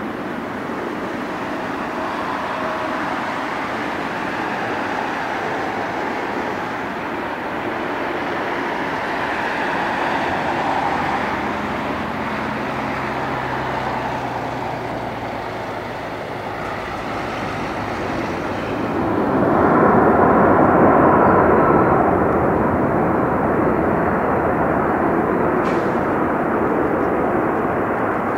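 Airbus A340-600 airliner's four Rolls-Royce Trent 556 turbofan engines in a steady rushing drone as it lands and rolls out along the runway. About two-thirds of the way through the engine noise swells to its loudest, then eases back a little but stays loud.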